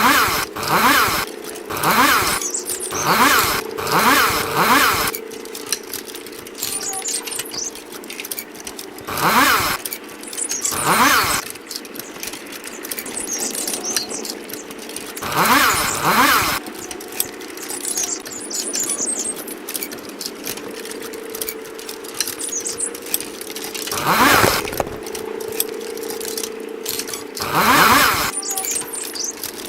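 Chainsaw idling with a steady hum, revved in short bursts again and again, each rev rising in pitch: six quick revs in the first five seconds, then single revs several seconds apart.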